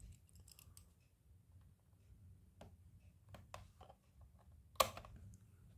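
Quiet room with a few faint, scattered clicks and taps, and one sharper click a little under five seconds in.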